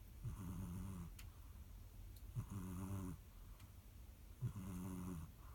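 A domestic cat snoring: three low, buzzing snores about two seconds apart, each lasting about a second, with quieter breaths between them.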